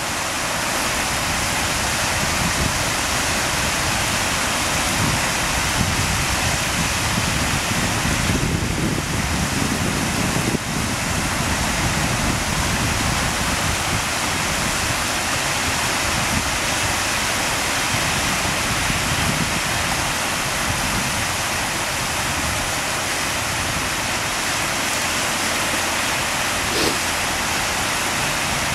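Small whitecapped waves breaking on the Lake Ontario shore: a steady wash of surf with a low rumble that comes and goes.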